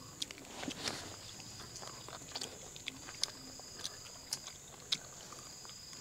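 Faint, scattered clicks and smacks of chewing as mutton is bitten off the bone and eaten by hand, over a steady high-pitched drone.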